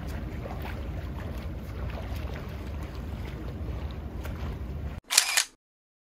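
Steady outdoor rumble like wind on the microphone, cut off suddenly about five seconds in by a short, loud double click of a camera shutter, then silence.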